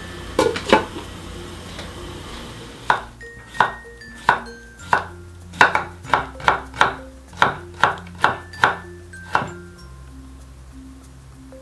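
A kitchen knife chopping cucumber on a wooden cutting board: about a dozen sharp, regular chops, roughly two a second, which stop near the end. Just before, a glass pot lid clinks twice. Light background music plays throughout.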